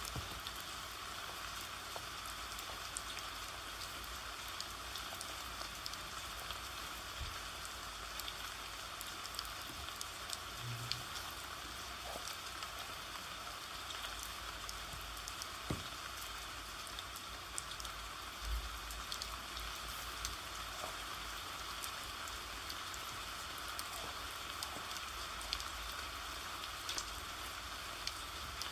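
Steady rain: an even hiss with scattered light ticks.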